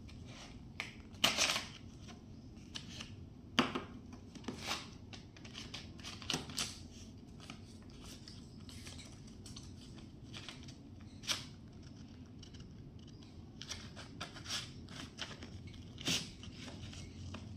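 Small handling noises from a cardboard box of coloured markers and the plastic markers being pulled out and set on a table: irregular clicks, taps and rustles, with a few sharper clicks scattered among them.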